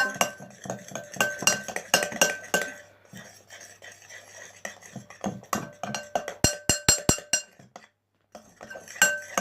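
A spoon stirring slime glue in a container, clinking and scraping against its sides in quick irregular strokes, with a pause for a moment near the end.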